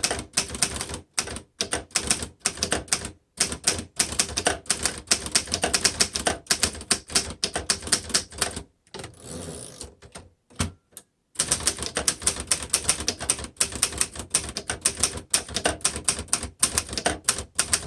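1954 Underwood upright manual typewriter being typed on steadily: rapid, crisp keystrokes of the typebars striking the platen. The typing stops briefly about halfway, with a short rasping sound, then resumes.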